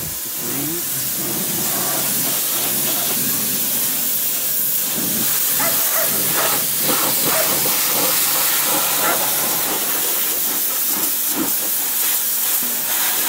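Pressure washer jet spraying into a car's empty engine bay: a loud, steady hiss of high-pressure water with irregular spatter as the lance moves over the surfaces.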